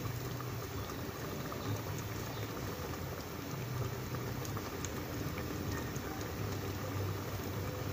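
Catfish in coconut milk simmering in a lidded pan, bubbling steadily with small scattered pops, over a low steady hum.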